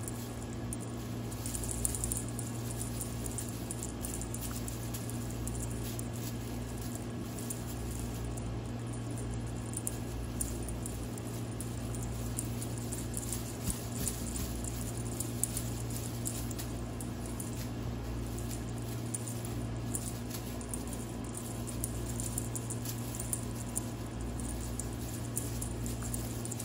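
Light rustling and small scattered clicks from a cat wand toy with tinsel streamers and beads being waved and batted, over a steady low hum.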